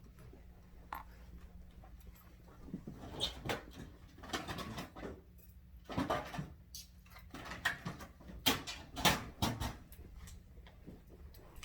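Dog playing with a toy: a run of irregular scuffling and knocking noises, busiest through the middle of the stretch.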